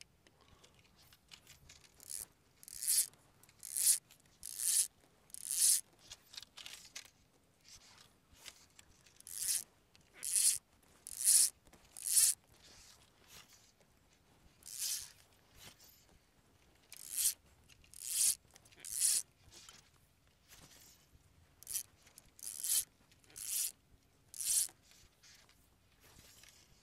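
Fly line being stripped in by hand through the rod guides: short zipping hisses about one a second, in runs of three to five pulls with pauses between.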